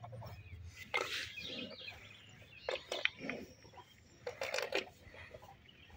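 Water buffalo drinking from a tub of water: irregular slurps and sucks of water in short bursts a second or two apart.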